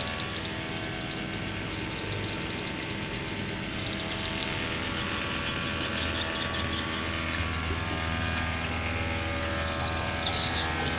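A motor hums steadily throughout. About halfway through, a quick run of high, evenly spaced chirps or clicks, about six a second, lasts some three seconds.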